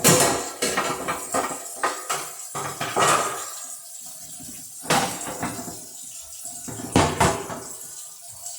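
Scrubbing a wire freezer rack up and down along its wires: a run of irregular rubbing strokes with sharp knocks of the rack, the loudest right at the start and near the end.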